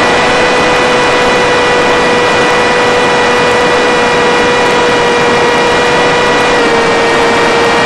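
Skyfun foam model plane's electric pusher motor whining at a steady pitch over a rush of air noise, dipping slightly in pitch near the end as the throttle eases.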